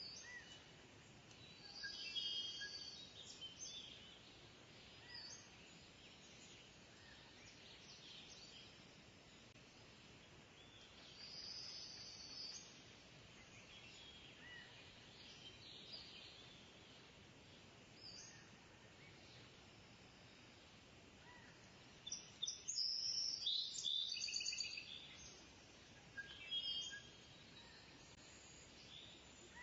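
Birds calling in short, high, pulsed bursts at scattered moments over a steady faint background hiss, with the loudest cluster of calls about three-quarters of the way through.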